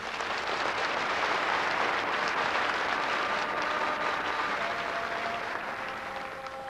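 Theatre audience applauding, rising as the music stops and fading away near the end. A faint held chanted tune starts to come in over the last couple of seconds.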